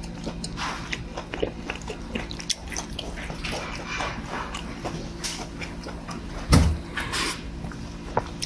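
Close-miked eating from a stone bowl of gukbap: a spoon clinking and scraping against the bowl, with chewing and slurping, and one louder knock about two-thirds of the way through. A steady low hum runs underneath.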